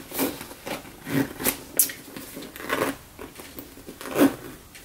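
Handling noise from a Louis Vuitton Palm Springs Mini monogram canvas backpack: a string of irregular rustles and light knocks as it is turned over in the hands.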